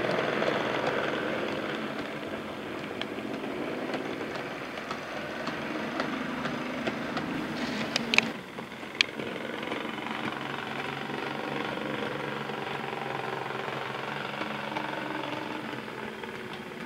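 OO gauge model Class 35 Hymek diesel locomotive and its freight wagons running on the track: a steady motor hum with the wheels rolling and clicking on the rails. A couple of sharp clicks about halfway through, after which the running sound is a little quieter.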